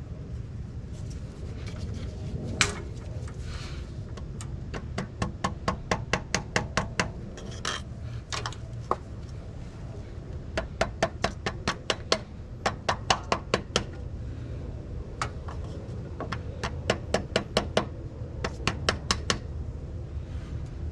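Hand tool working on the front of the engine: runs of sharp, evenly spaced clicks or taps, about five a second, with pauses between the runs, over a steady low hum.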